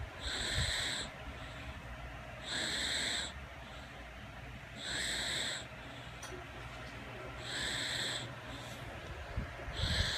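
A sleeping baby snoring: a hissy, slightly whistly snore on each breath, coming about every two and a half seconds, five times.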